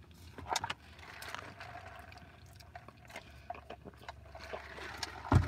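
Eating sounds: soft wet chewing with scattered small clicks and rustles from a paper food bag being handled. A single dull thump about five seconds in.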